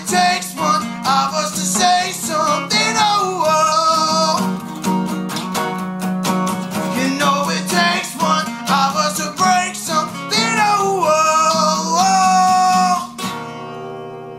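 Two acoustic guitars strummed together in a duet, with a man singing over them. About 13 seconds in the playing stops on a final chord that rings and slowly fades.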